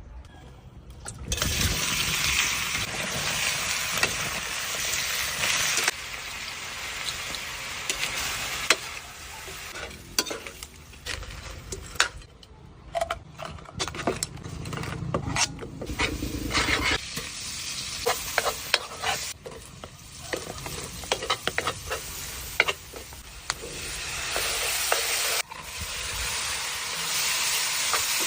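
Seafood sizzling as it fries in a pan, stirred with a utensil that scrapes and clicks against the pan. The sizzle is strongest in the first few seconds and again near the end, thinner in the middle where the clicks of stirring stand out.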